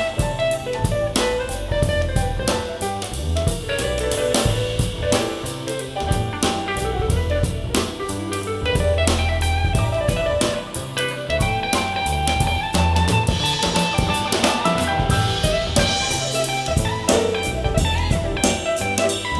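Instrumental soul-jazz music with drum kit, bass and guitar, played back through an in-ear monitor for a sound comparison.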